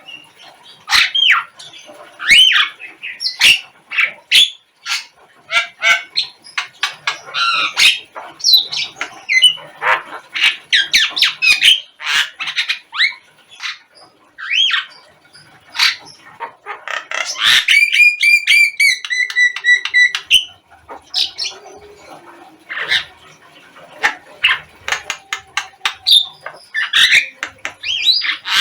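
Javan mynas (jalak kebo) calling: a busy, loud stream of harsh squawks, chattering notes and short whistles, with a quick run of repeated notes about eighteen seconds in.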